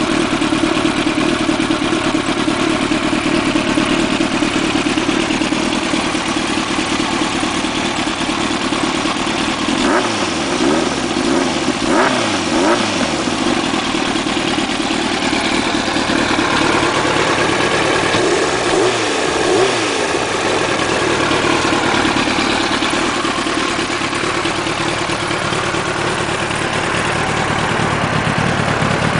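2001 Yamaha YZF-R1's inline-four engine idling through an Over Racing aftermarket exhaust, revved up and back down in a few short blips about a third of the way in and again about two-thirds through.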